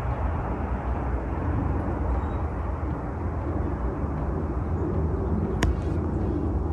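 Steady low rumbling noise, with one sharp click about five and a half seconds in.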